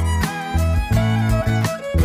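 Instrumental background music: a melody over a low bass line that changes notes several times.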